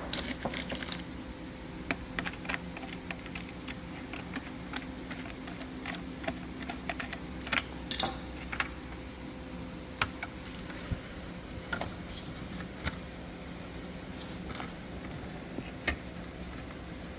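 Scattered light plastic clicks and rattles of a motorcycle helmet visor being worked off its side brackets, with a louder cluster of clicks about eight seconds in. A steady low hum runs underneath.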